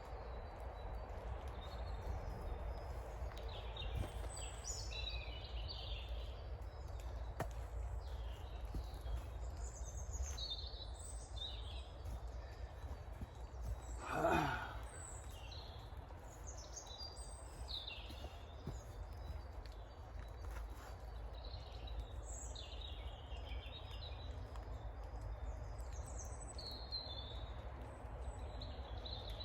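Small woodland songbirds chirping and singing on and off over a steady low rumble of wind. About halfway through there is one short falling vocal sound, like a sigh.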